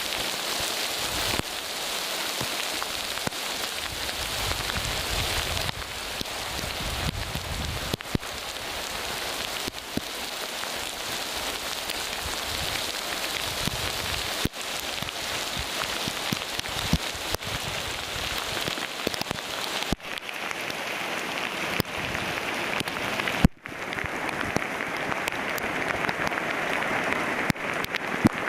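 Rain falling on surfaces: a steady hiss with scattered drop ticks, with bouts of low rumble in the first several seconds. The sound changes abruptly twice in the second half.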